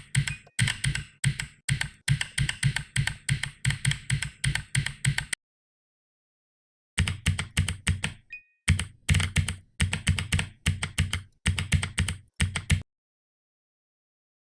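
Computer keyboard keys being typed quickly, a dense run of clicks with a deep low thud in each keystroke. The typing stops for about two seconds in the middle, resumes, and stops again near the end.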